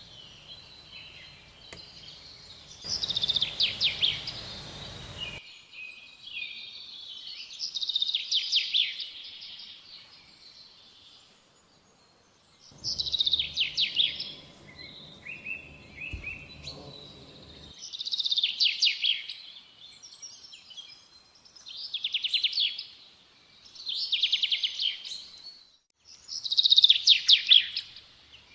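A small songbird singing: a fast, rattling trill that falls in pitch, repeated about seven times a few seconds apart. A low rumble is heard twice, a few seconds in and again around the middle.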